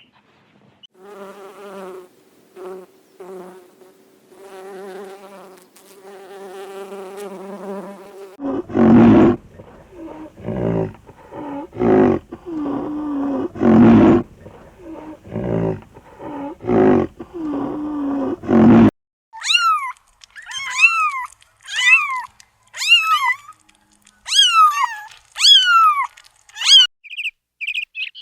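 A sequence of animal calls. First comes a steady pitched drone, broken by short gaps. Next, about a third of the way in, a run of loud, rough, rhythmic calls. From about two thirds of the way in, a bird gives a series of sharp chirps that each fall in pitch.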